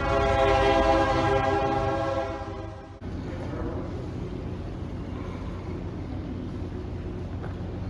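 Amtrak train horn sounding one long chord for about two and a half seconds, then, after an abrupt change, a steady low rumble of the train.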